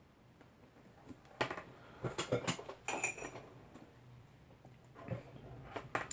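Handling noise from working with cable and small hardware: a few sharp plastic clicks and knocks, the loudest about a second and a half in, with some rustling in between.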